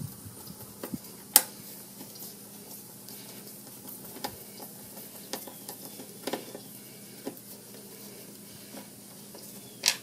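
Screwdriver work on a mower's engine cover: Phillips-head screws being turned out, giving scattered small clicks and scrapes. There is a sharper click about a second and a half in and another near the end.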